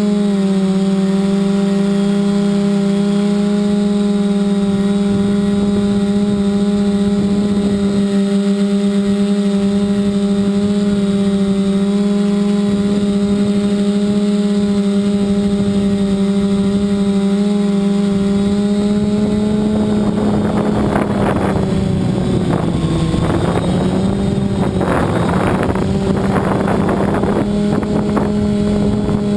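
Electric motors and propellers of a 580 mm multirotor drone humming at a steady pitch in flight. From about twenty seconds in, wind gusts buffet the microphone and the motor pitch wavers.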